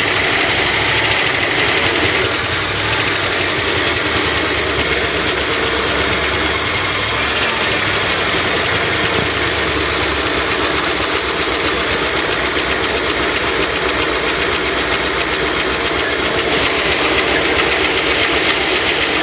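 302 V8 engine idling steadily with a rapid, even clicking or ticking running with it, the clicking noise that its owner is asking about.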